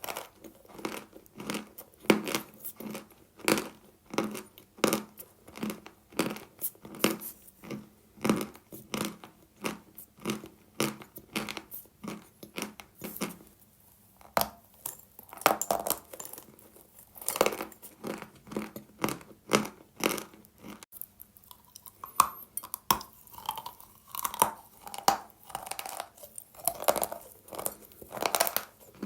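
Dry Khrapovsky chalk being bitten and chewed close to the microphone: a run of crisp crunches, about one to two a second, with a short pause about halfway through.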